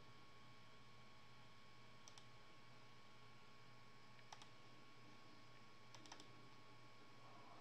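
Near silence: room tone with a steady faint hum, broken by a few faint, short clicks. There are two about two seconds in, one just after four seconds and a quick run of three around six seconds.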